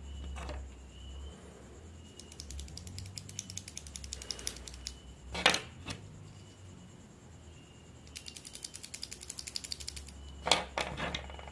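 Mechanical keyboard switches pressed in fast runs of rapid, even clicks, about nine a second, twice over. A louder single clack comes in the middle and another near the end.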